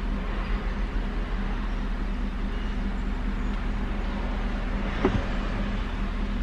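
Steady low hum of a parked car running, heard from inside its cabin, with a short faint knock about five seconds in.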